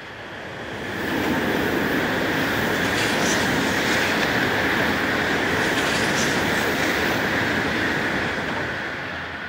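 A train passing close by: wheel and rail noise that swells about a second in, holds steady, and fades near the end.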